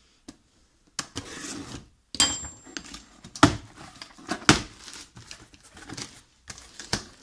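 Cardboard box being opened and its packaging handled: a scraping rush lasting nearly a second about a second in, then a run of irregular knocks and rustles.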